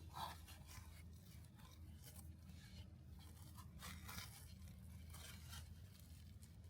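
Faint, irregular scraping and tearing noises, roughly one or two a second, over a low steady hum.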